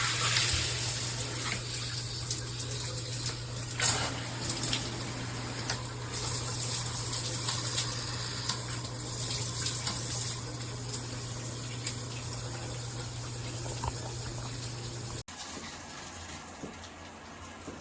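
Water spraying from a shower head, a steady hiss over a low hum, with a few sharp knocks, the loudest about four seconds in. About fifteen seconds in the sound drops suddenly to a quieter spray.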